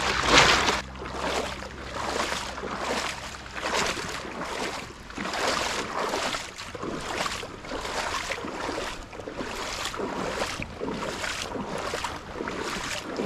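Legs wading through shallow seawater: a rhythmic swish and slosh with each stride, a little more than one a second.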